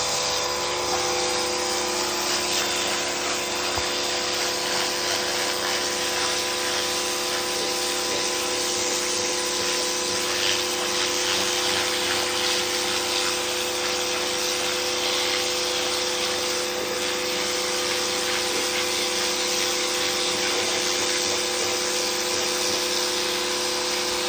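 Pressure washer running steadily: an even motor hum under the hiss of the water jet spraying onto cloth pants laid on concrete.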